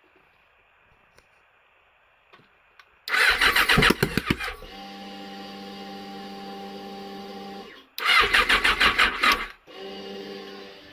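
Yamaha FZ6 motorcycle engine cranked by its electric starter in two short, loud bursts, about 3 and 8 seconds in, with a steady hum after each attempt. The engine will not start.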